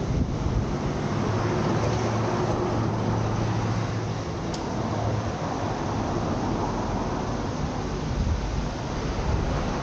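Steady city road-traffic noise, a low rumble and hiss of vehicles, with an engine hum that fades out about halfway through.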